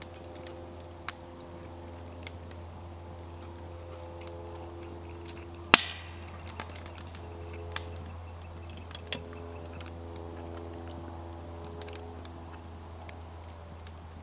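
Chewing of stir-fried noodles, broken by a few sharp clinks of a metal fork against a ceramic plate. The loudest clink comes about halfway through, with lighter ones near the start and a couple more a few seconds later.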